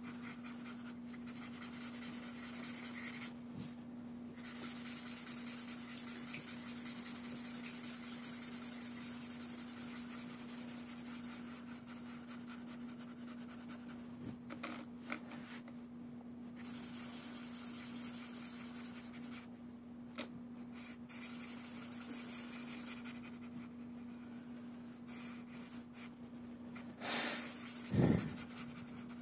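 Red felt-tip marker scratching on paper as an area is coloured in: long stretches of strokes broken by short pauses, over a steady low hum. A louder knock about a second before the end.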